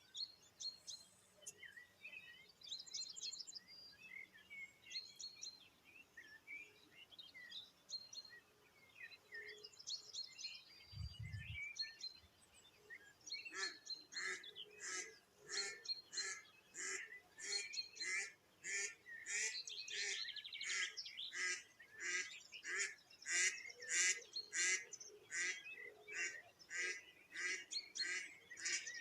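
Small birds singing, then from about halfway in a live decoy duck quacking in a long, steady series of calls, about two a second, over the birdsong. A brief low thump just before the quacking starts.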